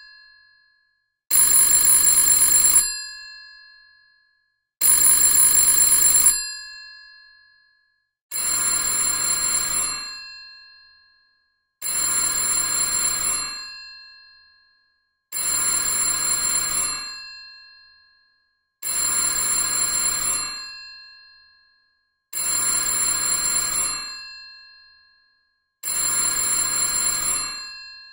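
Vintage telephone bell ringing in an even rhythm: rings about a second and a half long, each dying away, repeating roughly every three and a half seconds. A little after 8 seconds in, a second, slightly quieter ring with a different tone takes over at the same pace.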